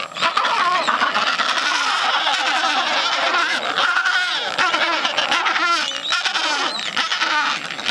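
Adélie penguin colony calling: a dense, continuous din of many overlapping harsh, braying calls.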